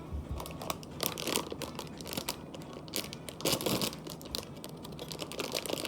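Plastic packaging crinkling and rustling as it is handled and opened, in irregular crackly bursts with small clicks and taps.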